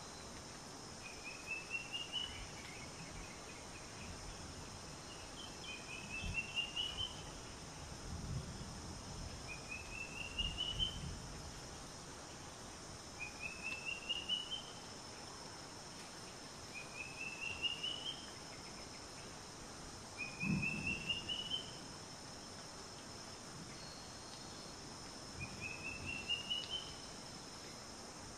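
Outdoor nature ambience: a high, rapidly pulsed trill that rises in pitch, lasting about a second and repeating seven times, about every three and a half to four seconds, over a steady high hiss.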